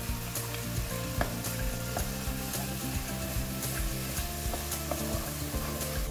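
Spice paste sizzling and frying in a non-stick wok while a wooden spatula stirs it, with short scrapes and taps of the spatula against the pan.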